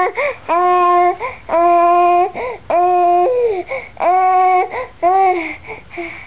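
Baby vocalizing: a series of loud, long 'aah' calls held at a steady pitch, each under a second, broken by short gaps.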